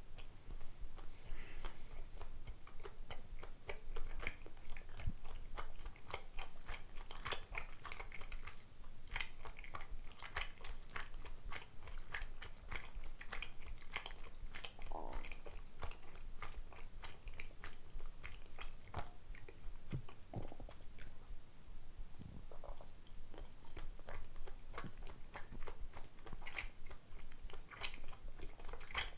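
Chewing of soft rice-flour dango: a dense, irregular run of small wet clicks throughout. A couple of short stomach gurgles come through near the middle.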